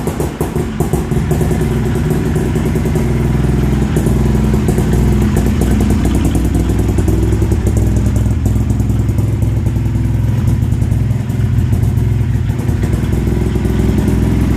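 350cc two-stroke engine of an early-1990s Bangkok tuk tuk running at a steady idle, a fast even beat. It settles from slightly higher revs in the first second or two.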